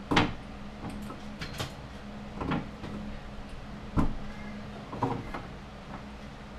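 Hands knocking and bumping about inside a wooden kitchen cabinet while plugging in a microwave's power cord: four separate knocks, the first and the one about four seconds in the loudest, over a steady low hum.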